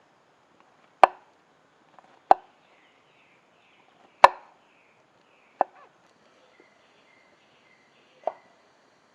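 Sharp knocks of a tool striking wood, five strikes at uneven intervals, the third the loudest, as in cutting or driving branches.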